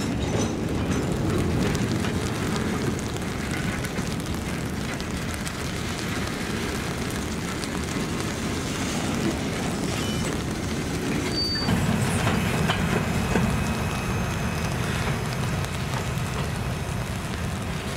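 Freight cars rolling past close by: a steady rumble of steel wheels on rail, with rain falling. The sound changes about two thirds of the way through as a second string of boxcars rolls by on a curve.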